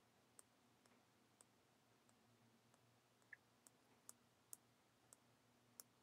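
Near silence: room tone with about a dozen faint, sharp clicks at irregular intervals, the strongest of them in the second half.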